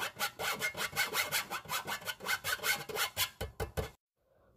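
Metal spoon scraping bread flour through a fine stainless-steel mesh sieve, in quick, even strokes of about five a second. The strokes stop a little over three seconds in.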